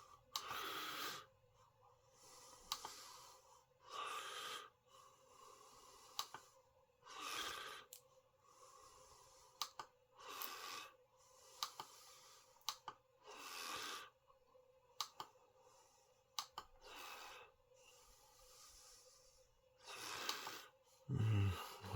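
A person breathing heavily close to the microphone: slow, regular breaths in and out, one every second or two, with a few faint clicks in between.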